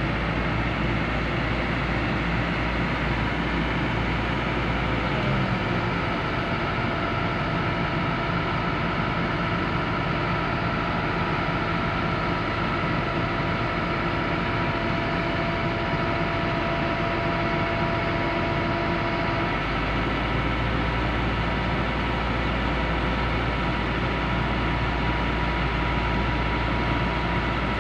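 Diesel engines of a Kobelco SK200-10 excavator and its self-loader truck running steadily, with a thin whine over the engine noise. The engine note shifts about five seconds in and again near twenty seconds, where part of the whine stops.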